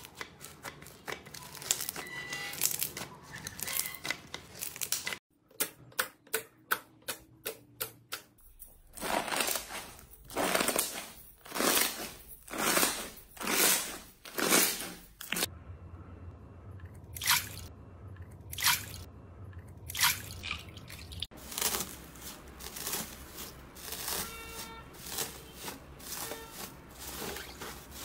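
Slime being pressed, squeezed and kneaded by hand, making a run of wet squishes and crackles. A quick string of small clicks comes after about five seconds, then about one loud squish a second for several seconds.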